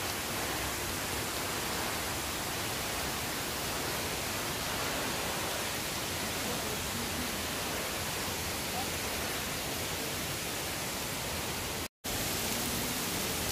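Thin falls of water pouring from a rock overhang, a steady rushing spatter. It breaks off into silence for a split second near the end.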